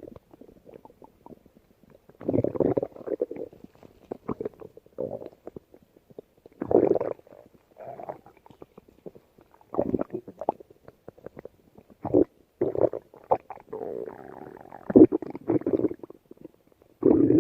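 Stomach growling in a string of irregular rumbles, some short and some lasting a second or two, with quiet gaps between them.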